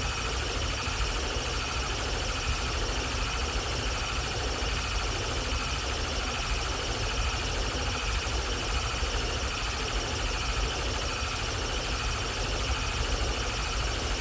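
Experimental electronic noise music: a dense, unchanging wall of hiss with many held high-pitched tones over a deep low rumble.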